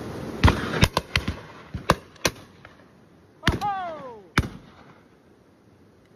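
Shotgun shots on a driven shoot: about eight sharp reports of varying loudness in quick succession, bunched in the first two and a half seconds with a last one near four and a half seconds. A short falling cry sounds just before the last shot.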